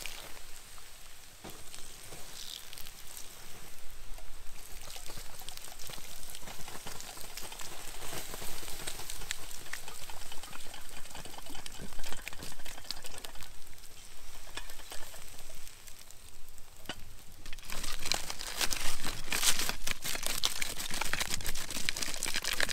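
Water poured from a kettle onto a campfire's hot embers, hissing and crackling as it puts the fire out. Near the end a louder stretch of hissing and scraping as the wet ashes are stirred with a stick.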